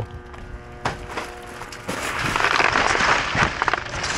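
Plastic wrap and bags crinkling and rustling as a gloved hand digs through a dumpster, getting loud about two seconds in, after a single knock about a second in.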